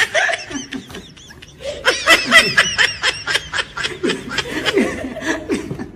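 A woman laughing hard: a run of quick, high-pitched laughs that starts about two seconds in, is loudest early on, and trails off toward the end.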